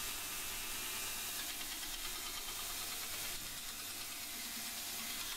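Belt grinder running while the flat of a chef's knife blade made from an old rasp is held against the abrasive belt: a steady grinding hiss.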